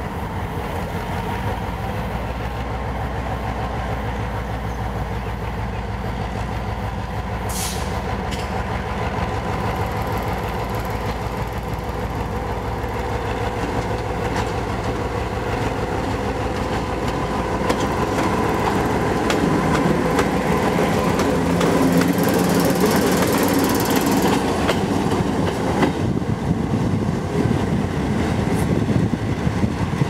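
EMD G22 diesel-electric locomotive running slowly while shunting, its engine throbbing steadily and its wheels clicking over the rail joints and points, getting louder as it comes closer. A brief high-pitched burst about seven seconds in.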